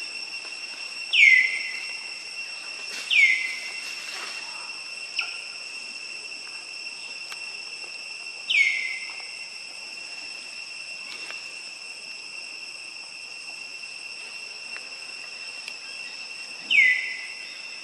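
Steady high-pitched drone of insects in the forest, with a loud whistled call that slides down in pitch, heard four times at uneven gaps.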